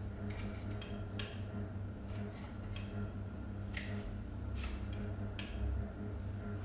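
A metal knife and fork cutting toasted bread into small pieces on a plate: scattered clinks and scrapes of cutlery against the plate, a few ringing briefly. A steady low hum runs underneath.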